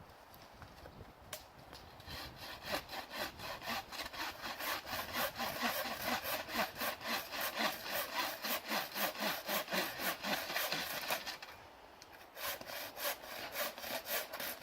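Hand saw cutting through firewood with steady back-and-forth strokes; the sawing pauses briefly near the end, then starts again.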